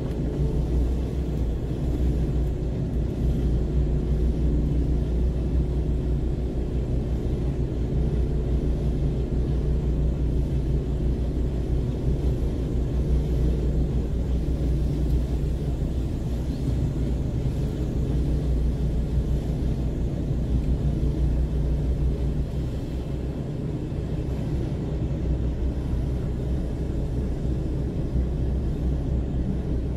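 Heavy truck's diesel engine running with a steady low drone as the lorry moves slowly along a narrow access road.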